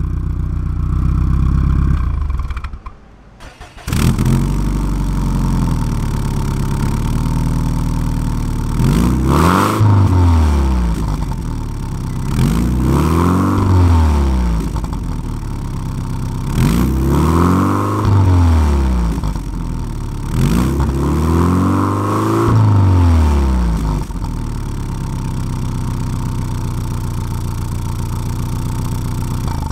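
Subaru WRX STI's turbocharged flat-four idling through a Tomei exhaust with its silencer insert fitted, then blipped four times to moderate revs. Each blip rises and falls in pitch before the engine settles back to a steady idle. The sound cuts out briefly about three seconds in.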